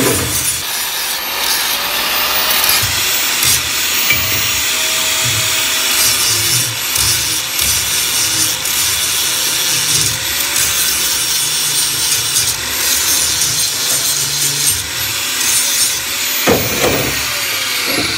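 Hitachi electric angle grinder grinding metal, its disc rasping steadily against the workpiece. Near the end the disc is lifted off the work.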